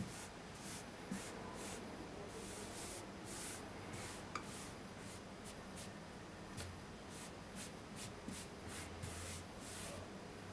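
Faint short hissing rustles, irregular at roughly one or two a second, over quiet room tone.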